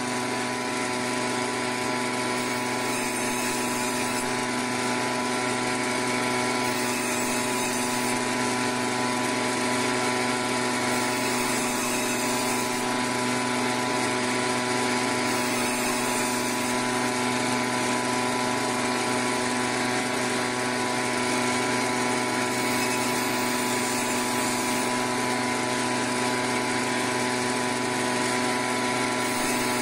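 Meat-and-bone band saw running steadily, a constant motor hum with an even whine above it, as pieces of fish are fed through its blade and cut.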